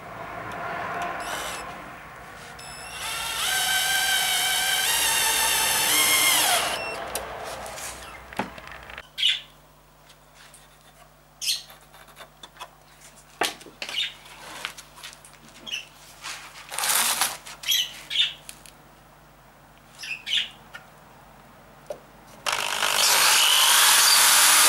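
A cordless drill whines steadily for a few seconds, then winds down with a falling pitch. Scattered knocks and taps follow as the pine boards are handled. Near the end a corded Metabo drill starts and bores into the pine side panel, the loudest sound.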